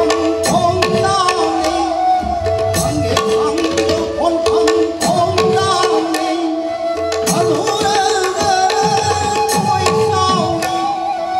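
Manipuri pung barrel drum played in a fast dance rhythm, its bass strokes falling in pitch after each hit. Under the drum runs a held drone that drops out now and then, and over it a wavering melody.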